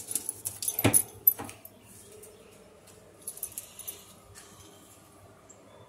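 A dog's metal collar and tags jingling as it moves, in a flurry of quick clicks in the first second and a half with a knock about a second in, then a shorter jingle a little past the middle.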